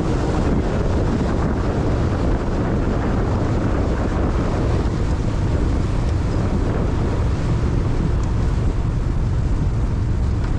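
Boat under way on the open sea: steady engine and water noise with wind rumbling on the microphone.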